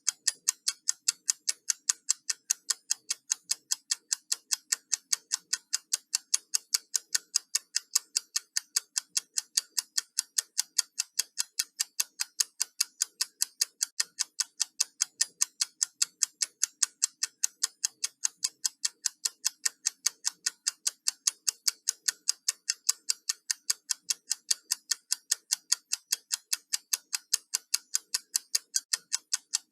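Countdown timer ticking: sharp, clock-like ticks in a steady, even rhythm of a few a second.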